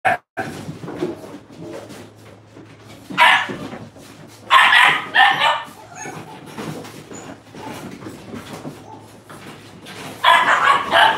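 Puppies play-fighting, giving short bursts of yapping barks: once about three seconds in, twice around five seconds, and again near the end.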